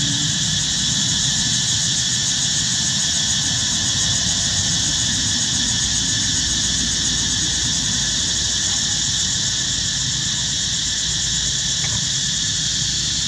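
Steady, high-pitched insect drone, with a low rumble underneath.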